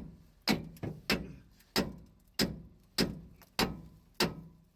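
Repeated metal-on-metal hammer blows on a stuck rear-axle U-bolt, about eight even strikes a little over half a second apart, each ringing briefly.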